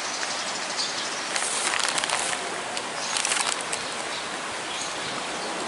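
Crackling, rustling handling noise from clothing and gear being moved about, in two bursts a little over a second and about three seconds in, over a steady outdoor hiss.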